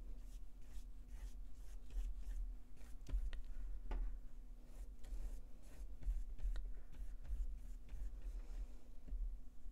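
Large damp paintbrush brushing and dabbing over a thin paper-napkin layer on paper, an irregular run of soft scratchy bristle strokes with one sharper tick about four seconds in, over a steady low hum.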